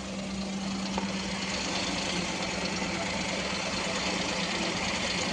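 Maruti Suzuki Alto engine idling: a steady low hum under a dense hiss that grows slowly louder from about a second in.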